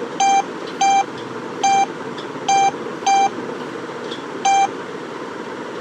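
Wearfit HW37 smartwatch dial-pad key beeps as a phone number is tapped in: six short beeps of the same pitch at uneven intervals, over a steady background hiss.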